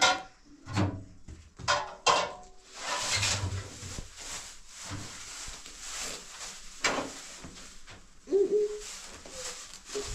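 Kitchen handling sounds: a few sharp knocks and clatters in the first two seconds, then a softer steady rustle, with a brief pitched call a little after eight seconds.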